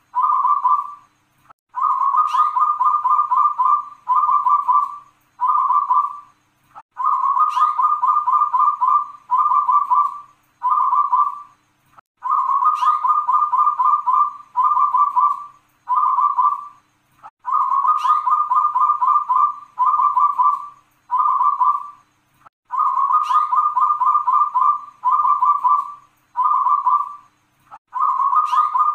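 Local zebra dove (perkutut) cooing its song over and over, about one phrase every five seconds. Each phrase is a long rolling run of coos followed by three or four separate short 'kung' notes.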